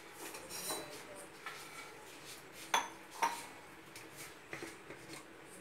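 A metal spoon stirs and scrapes dry barnyard millet and moong dal in a hot aluminium pressure cooker. The scraping is faint, with a few sharp clinks against the pot, the loudest two close together about three seconds in.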